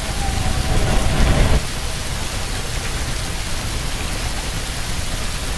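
Steady roar of Niagara Falls' water plunging into the river and its spray raining down, heard from close up. The noise swells into a louder, deeper rush for about a second, near the start.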